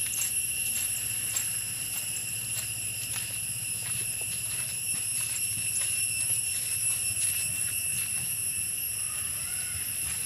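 Steady, shrill insect chorus: several high tones held without a break, with scattered faint clicks of footsteps on a dirt path.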